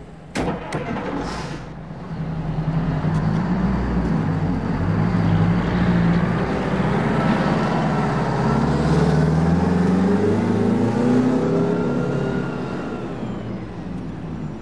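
A motor vehicle's engine running and accelerating. It swells in over a couple of seconds, its pitch rises, then it fades away. A sharp knock comes just before it.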